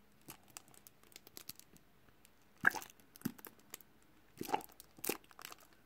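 A plastic tube of clear liquid glue squeezed out into a glass bowl: quiet scattered clicks and crackles from the tube and glue, with a few louder sharp sounds in the second half.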